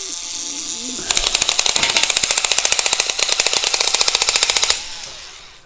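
SKIL Auto Sharp cordless multi-cutter running, its spinning blade cutting through wire mesh. About a second in, a rapid, even crackle of snapping clicks starts and lasts three to four seconds as the blade bites through the wire strands. The motor then winds down near the end.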